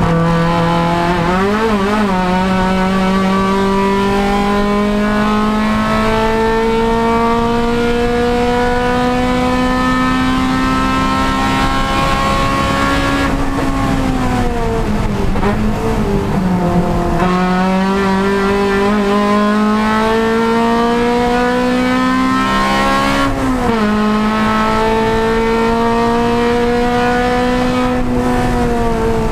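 Honda Civic Si race car's four-cylinder engine running hard at race pace. Its pitch climbs slowly on long pulls, winds down under braking with downshifts around the middle, then climbs again and drops at an upshift about two-thirds of the way through.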